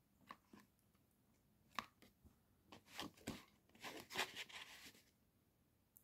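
Faint eating sounds: scattered clicks and short scraping noises, busiest between about three and five seconds in.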